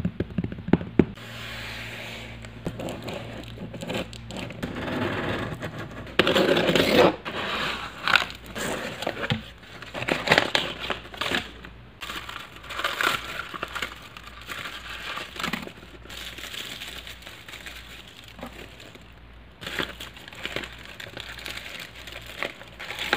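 A cardboard shipping box being opened by hand and kraft honeycomb packing paper being pulled about: irregular crinkling, scraping and tearing with scattered clicks.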